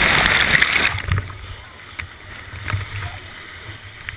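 Whitewater rapids crashing and splashing loudly over the camera for about the first second, then dropping to a lower steady rush of the rapids with a few sharp knocks.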